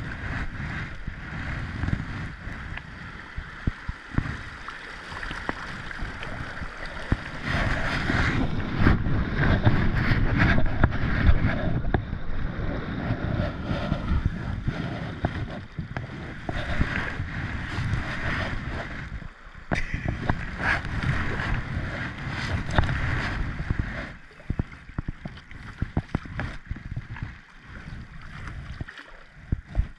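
River water rushing and splashing around a kayak hull as it runs a shallow riffle, with paddle strokes and wind buffeting the microphone. It is loudest about a third of the way in and quietens near the end as the water calms.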